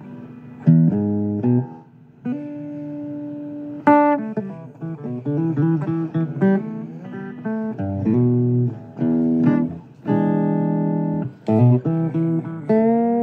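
A guitar playing a blues, with single plucked notes and strummed chords. Near the end a few notes bend in pitch.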